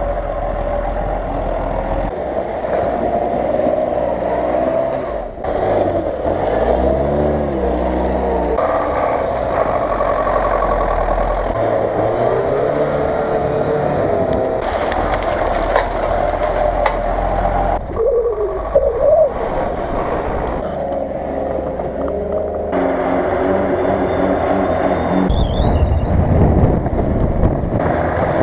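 Engines of lifted off-road 4x4s on big tyres revving up and down as they push through deep snow, wheels spinning. The sound changes abruptly every few seconds between short clips.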